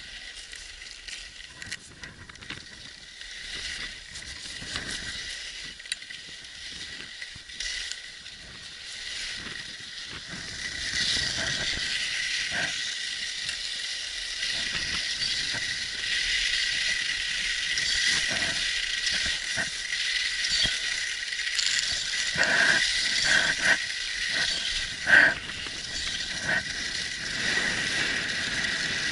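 Skis sliding and scraping over packed snow: a quiet hiss that grows clearly louder about ten seconds in as the skier gets moving, with a few sharp clacks near the end. A faint steady high whine sits underneath throughout.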